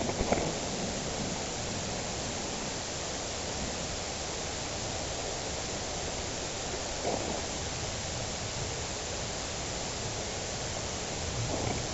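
Steady hiss of outdoor background noise, with faint brief knocks or rustles about a third of a second in, around seven seconds, and near the end.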